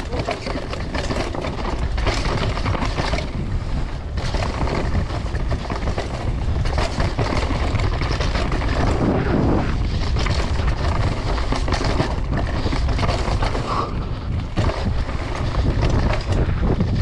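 Mountain bike riding down a dirt trail: heavy wind noise on the microphone over the rumble of tyres on dirt, with frequent rattles and knocks as the bike goes over bumps.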